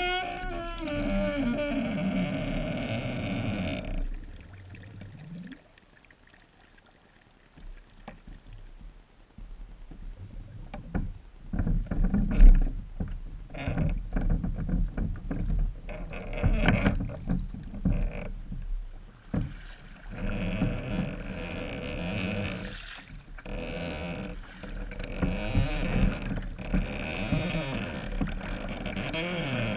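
Knocks and bumps on a small homemade catamaran's wooden deck, then water swishing in a slow rhythm of paddle strokes, about one every two seconds.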